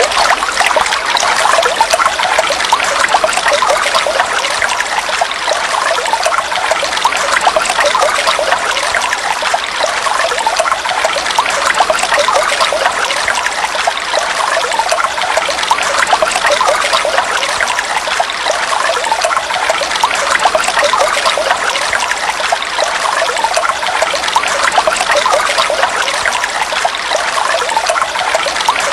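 Heavy rain falling steadily: a dense, unbroken hiss of countless drops.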